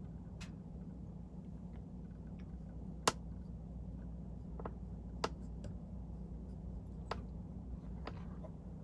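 Handful of small, sharp clicks and ticks from hands handling feathers and a hook at a fly-tying vise, the loudest about three seconds in, over a steady low hum.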